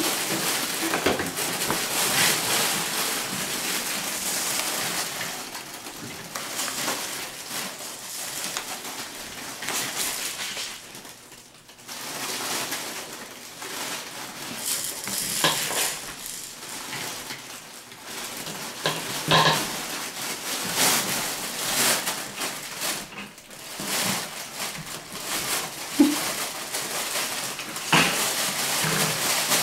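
Border collie puppies scrabbling over newspaper and a fabric play tunnel: irregular crinkling and rustling of paper and fabric, with scattered clicks and a few short, sharper sounds.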